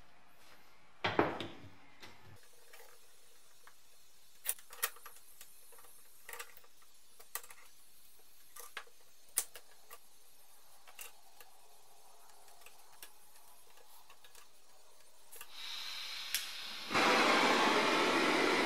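A metal clunk about a second in, then scattered light clicks and taps as parts are handled and clamped in a bench vise. Near the end a handheld butane blowtorch is lit with a click and runs with a steady loud hiss.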